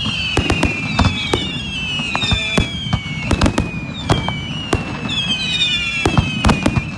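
Fireworks going off: a rapid, irregular string of sharp bangs and cracks, with several whistles that slide slowly down in pitch overlapping through it.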